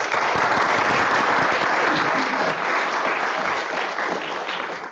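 Audience applauding: many hands clapping together, starting at once and dying away near the end.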